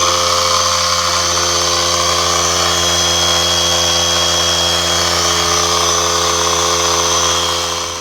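McGraw 3-gallon, 1/3-horsepower oil-free air compressor running, very loud, with a high whine over a steady hum, sounding like it is turning 20,000 RPMs. It stops near the end.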